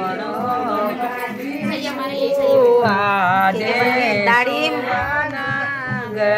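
Women singing a Kumaoni mangal geet, a traditional auspicious wedding song, in a wavering, ornamented melody.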